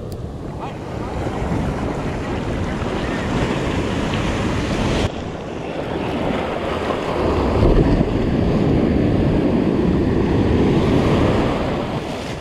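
Ocean surf washing in around the feet with wind buffeting the microphone; a wave surges in during the second half, loudest about two-thirds of the way through, then draws back near the end.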